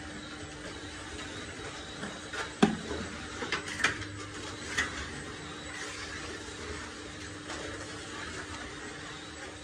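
Workshop with a steady low machine hum, and a few light knocks and scrapes from a hand tool smoothing the surface of a wet clay floor stone.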